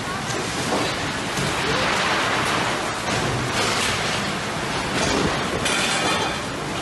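Loud, steady rush of a severe windstorm with torrential rain: strong wind and driving rain beating down.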